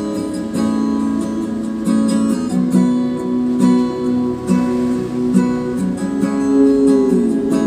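Acoustic guitar music with strumming, played back through a Sansui B-2102 stereo power amplifier running on test after repair, its level meters showing signal.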